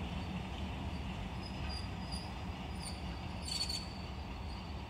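Low steady rumble of a diesel locomotive drawing away with its train, with a few faint, short, high insect chirps above it.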